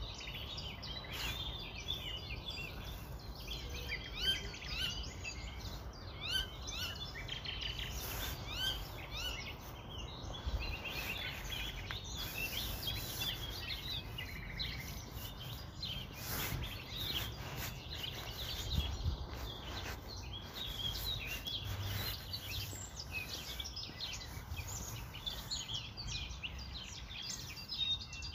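A chorus of small birds chirping continuously, many quick calls a second, over a low, steady background rumble, with a few faint knocks.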